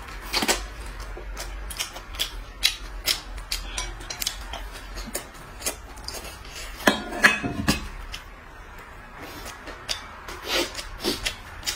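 Close-up eating sounds: noodles being slurped and chewed, with many short, sharp clicks scattered throughout and a louder cluster of slurps and clicks about seven seconds in.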